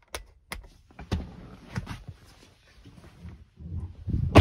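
Three sharp clicks as rocker toggle switches on a truck's emergency-light control panel are flipped, then rustling and handling noise, and near the end a loud heavy thud as the 2009 GMC pickup's cab door is shut.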